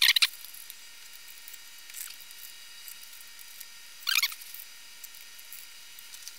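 Small metal clinks of steel wing nuts being picked up and threaded onto the studs of a rock tumbler barrel's lid. There is a quick cluster of clicks right at the start, a faint click about two seconds in and another short cluster about four seconds in, over a low steady hiss.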